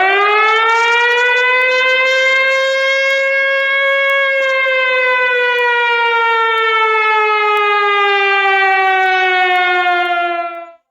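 One long siren wail, loud and steady in level. It swoops up sharply at the start, climbs slowly in pitch for a few seconds, then sinks gradually and cuts off abruptly near the end.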